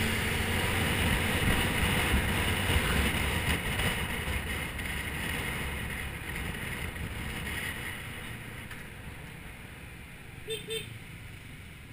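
Small motor scooter engine running at full throttle under heavy wind rush on the microphone. The rush fades gradually, and two short beeps sound near the end.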